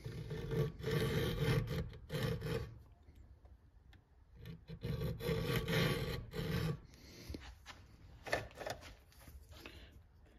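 Flat file rasping along a Husqvarna 372XP's saw chain, drawn in two long passes from the bar tip back along the teeth to file down the rakers (depth gauges), which have not been lowered before. A few light clicks follow near the end.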